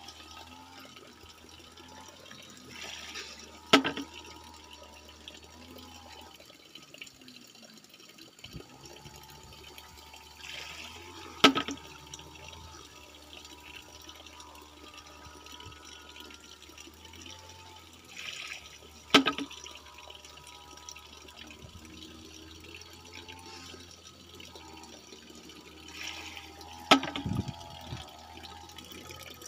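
Bamboo water knocker (pancurendang), a rat-scaring device: a bamboo tube fills from a stream, tips and spills, then swings back so its end knocks down on a bamboo post. It gives four sharp knocks about eight seconds apart, each just after a brief splash of spilling water. Water trickles and runs throughout.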